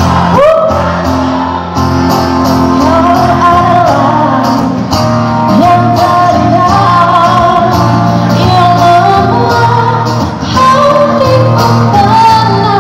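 A woman singing a pop song live into a microphone over musical accompaniment, amplified through the hall's sound system.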